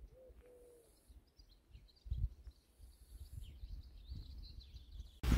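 Faint birdsong: small birds chirping in short repeated calls over a low wind rumble, with a brief low thump about two seconds in.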